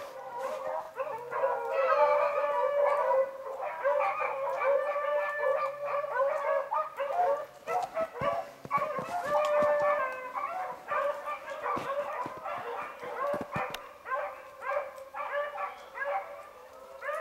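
A pack of beagles baying on a rabbit's track, several hounds in cry at once. The chorus is thickest for the first half and thins to scattered bays near the end.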